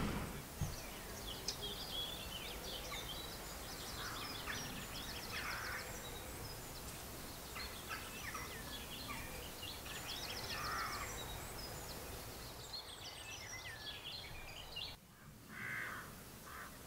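Small birds chirping and trilling over a quiet background, with a few lower, harsher calls now and then.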